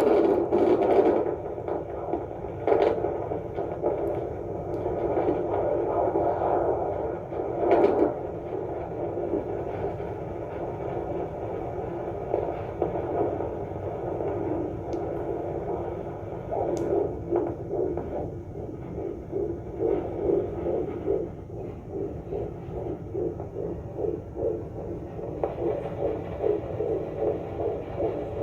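Fetal doppler picking up a 29-week fetus's heartbeat: a rapid, regular pulsing over a steady hum, the beats clearest in the second half.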